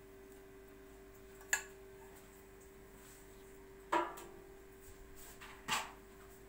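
Light kitchen handling sounds over a faint steady hum: a small click about a second and a half in, then a sharper knock with a brief metallic ring about four seconds in and another knock shortly after, as the pastry brush and round metal baking tray are handled.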